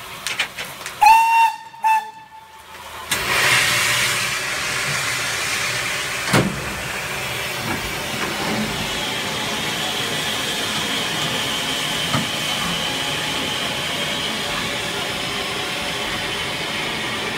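Steam locomotive whistle on BR 9F No. 92203 Black Prince sounds two short blasts about a second in, then a steady steam hiss fills the footplate, with a single knock a few seconds later.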